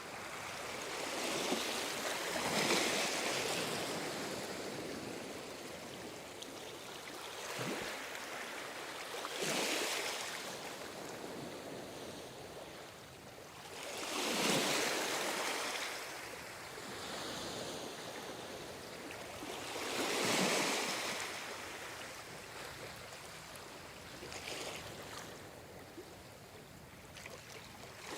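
Ocean waves breaking and washing on the shore, a steady rush of surf that swells with a larger wave roughly every five to six seconds, about five times.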